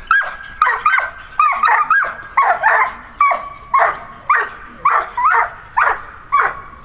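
A Belgian Malinois barking in a fast, steady run of about two barks a second as it lunges on its leash at a helper holding a bite sleeve. This is agitation barking in protection training.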